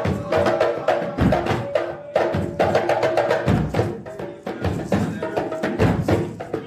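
Percussion-led music: a steady beat of drum and wood-block-like strikes under a few held tones.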